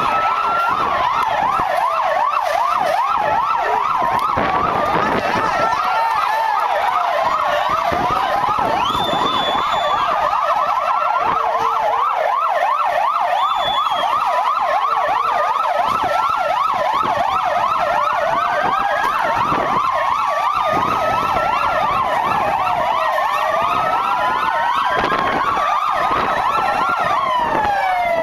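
Several police van sirens sounding at once. Slow rising-and-falling wails every few seconds overlap with fast yelping sweeps.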